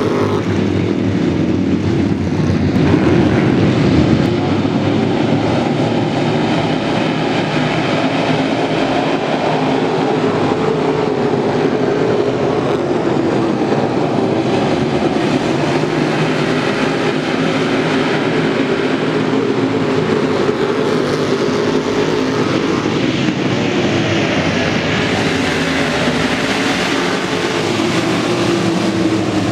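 Dirt late model race car engines running together in a loud, steady drone without hard revving, the pace of cars circling slowly under caution.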